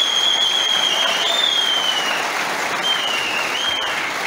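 Audience applauding steadily. A high whistle sounds over the clapping twice, one long and wavering and then a shorter one.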